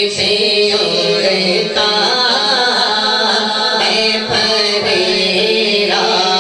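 A man singing a devotional naat, solo, into a handheld microphone and amplified. A steady tone is held beneath the voice.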